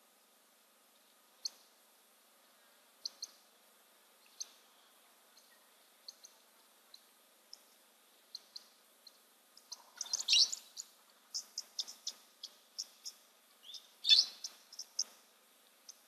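Brown-headed parrots calling at a waterhole: short, high chirps, scattered at first, then two louder flurries of calls about ten and fourteen seconds in.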